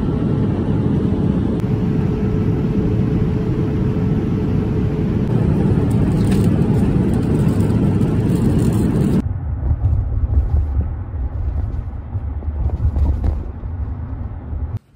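Steady airliner cabin noise. About nine seconds in it changes suddenly to the lower, uneven rumble of road noise inside a moving car, which cuts off just before the end.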